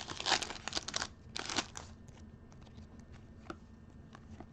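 Crinkling of a trading-card pack's plastic wrapper as cards are handled, loudest in the first second and a half, then a few faint clicks of cards being shuffled.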